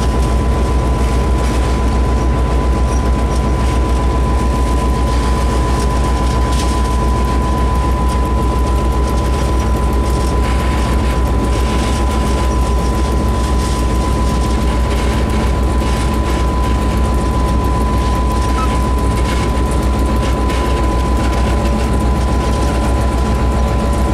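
Class 661 diesel locomotive, an EMD two-stroke V16, running steadily under way, heard from inside the cab: a loud low engine drone with a steady high whine above it and scattered faint knocks from the running gear on the track.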